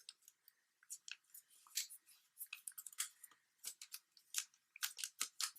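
Origami paper being folded and creased by hand: faint, irregular crinkles and crackles of the sheet.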